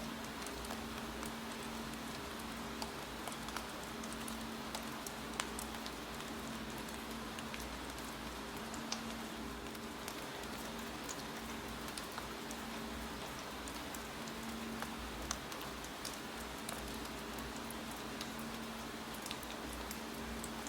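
Steady rain, with light, irregular keyboard keystroke clicks scattered through it and a faint steady hum beneath.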